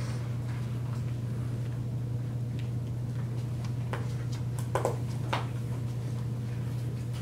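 Quiet classroom room tone: a steady low hum, with a few faint taps and a brief squeak or scrape a little after halfway.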